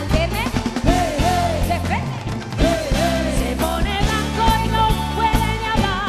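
Live pop song played loud by a band with a steady beat and heavy bass, a woman singing the lead melody into a handheld microphone, with a long held note near the end.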